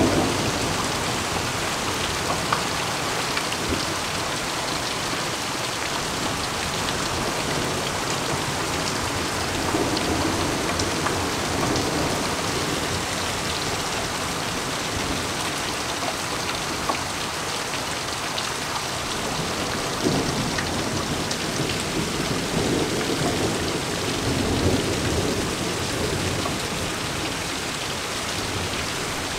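Heavy rain pouring steadily in a summer thunderstorm, with low rumbles of thunder swelling about ten seconds in and again from about twenty seconds in. A few sharp drip ticks sound in between.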